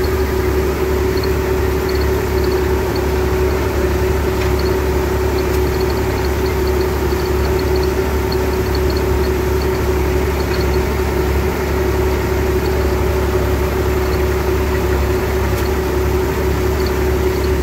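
IMT 539 tractor's diesel engine running at a steady working speed, heard from inside the cab while the tractor spreads fertiliser across a field.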